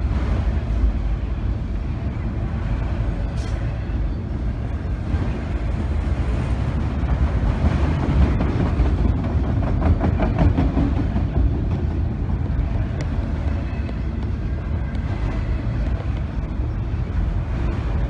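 Long freight train of autorack cars rolling past: a steady rumble of steel wheels on the rails.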